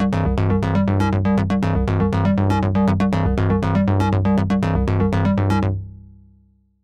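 Access Virus TI–style synthesizer patch, played through the OsTirus emulation plugin: a fast, even sequence of short bright notes, about six a second, over a held bass. It stops about six seconds in and decays away.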